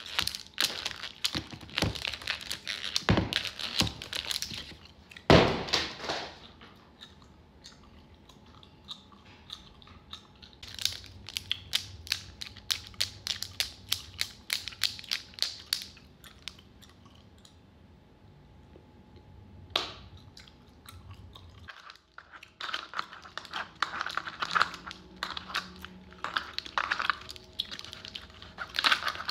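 Clear plastic tubes and their plastic sleeves being handled: irregular runs of sharp plastic clicks, clacks and crinkling, with the loudest crack about five seconds in and a few quieter stretches.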